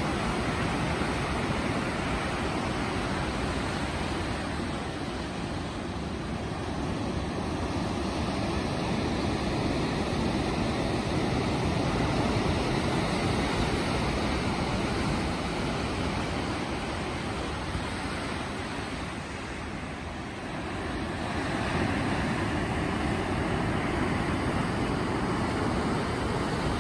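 Ocean surf breaking and washing over rocks below a cliff: a continuous rush that swells and ebbs, dipping briefly about three-quarters of the way through.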